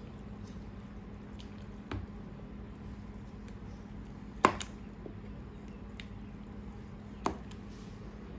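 A large spoon stirring okroshka, a thick kefir soup with chopped vegetables, in a big stainless-steel pot: soft wet squishing with a few sharp clicks of the spoon against the pot. The loudest click comes about halfway through.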